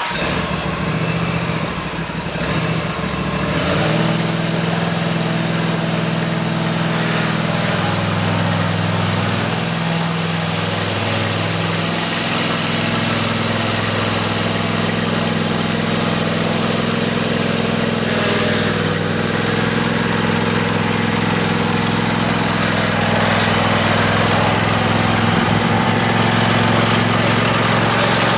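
Swapped-in 22 hp V-twin engine of a riding lawn mower, running on its original muffler. Its pitch shifts several seconds in as the mower is driven off, and it gets a little louder near the end as it passes close.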